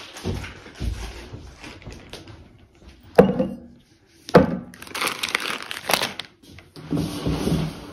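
Two glass bottles set down one after the other on a wooden table, each with a sharp knock, about a second apart, followed by rustling and handling noise.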